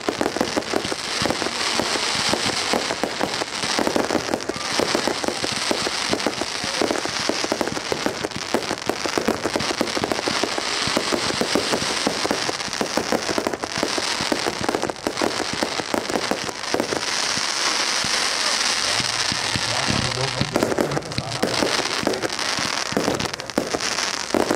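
Fireworks display: aerial shells bursting in a dense, unbroken run, with constant popping and crackling.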